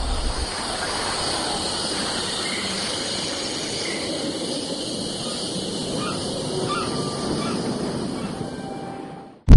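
Steady outdoor ambience of an empty city: an even rushing noise with a few faint high chirps about six to seven seconds in. It fades out near the end.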